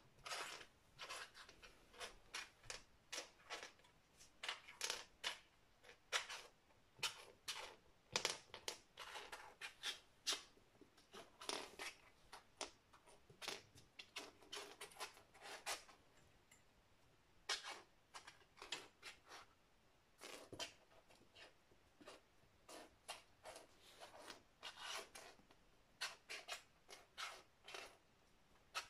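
A kitten playing on a laminate floor: short, irregular scratchy scuffs and skitters of its claws and paws on the floor, several a second at times, with brief lulls in between.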